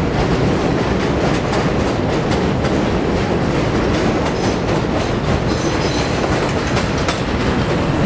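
Budd-built R32 subway train running past at speed: a loud, steady rumble with its steel wheels clattering over the rail joints in a quick run of clicks.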